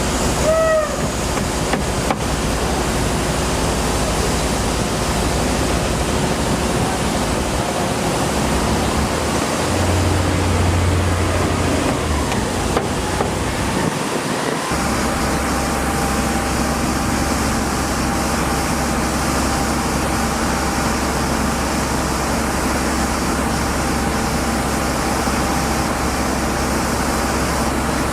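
Steady noise of road traffic, with a low engine drone swelling about ten seconds in and a steady low hum through the second half.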